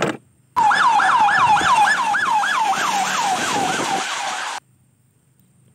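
Sheriff's patrol SUV siren in a fast yelp: a tone that rises and falls about four times a second over traffic noise, cutting off suddenly about a second before the end.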